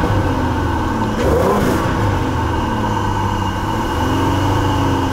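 2005 Ford Taurus V6 engine being revved, its pitch climbing and falling back about a second in, then a slower rise and fall near the end. It is revving against a plugged exhaust.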